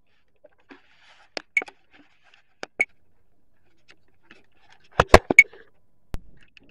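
Handling noise from a small camera being picked up and turned about by hand: scattered sharp clicks, then a quick cluster of louder knocks about five seconds in and one more knock near the end.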